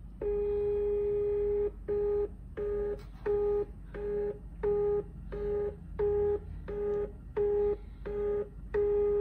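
Ambir nScan 690gt ID card scanner's feed motor running a cleaning card through its cleaning cycle, a steady pitched whine. It runs for about a second and a half, then stops and starts in about ten short bursts, and runs steadily again near the end.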